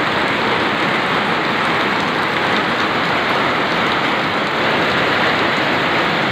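Heavy rain pouring steadily onto a corrugated metal roof, a loud, even hiss of countless drops striking the sheets.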